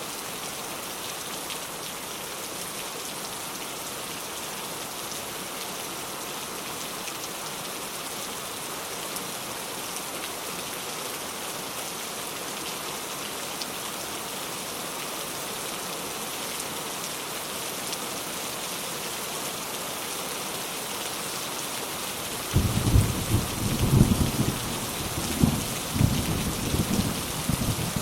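Steady rain falling, an even hiss. About 22 seconds in, thunder breaks in suddenly and rumbles low, swelling and easing several times to the end.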